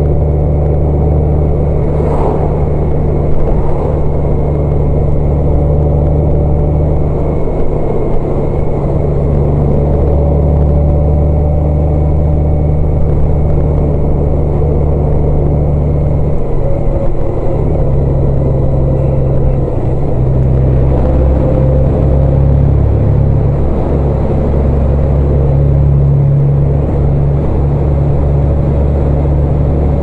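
Motor vehicle driving at a steady pace: a continuous low engine and road drone that shifts a little about halfway through.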